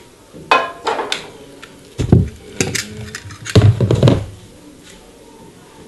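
Knocks and clatter of kitchen things being picked up and set down, with a few light clicks first and two heavy thumps about two and three and a half seconds in.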